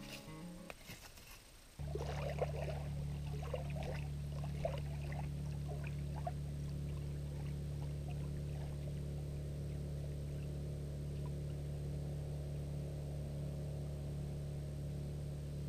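Small waves lapping and splashing on a sandy lake shore, over a steady low hum. The splashes are busiest in the first few seconds after the sound begins, then ease off. Before that, background music ends with a knock or two.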